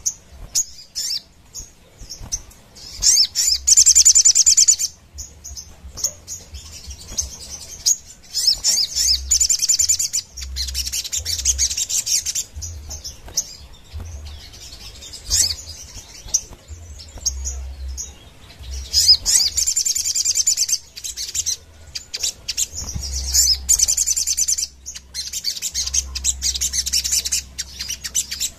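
Caged Sogon sunbird singing in full voice: repeated bursts of rapid, high, chattering trills, each one to two seconds long, fired off one after another.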